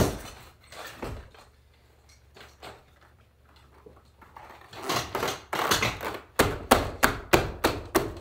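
Leather saddle seat being worked by hand: a few soft knocks and a rustle, then from about six seconds in a steady run of sharp strokes, about three a second.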